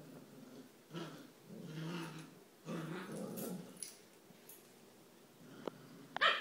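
Puppies play-growling in three rough bouts, then a short, high yelp near the end.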